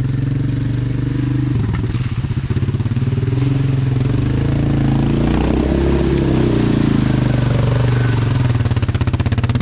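Yamaha Grizzly ATV engine running under load, the revs climbing through the middle and easing off again.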